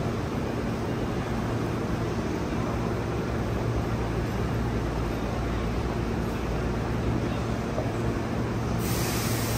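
Steady low hum of a Hankyu electric train standing at the platform. Near the end a steady hiss sets in suddenly.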